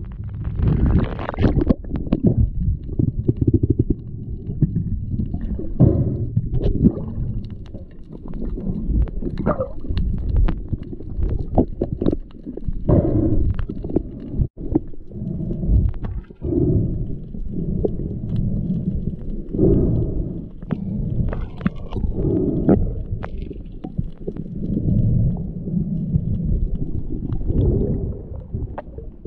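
Muffled underwater rumble of water moving around a submerged camera housing, swelling and fading every second or two, with scattered sharp knocks and clicks.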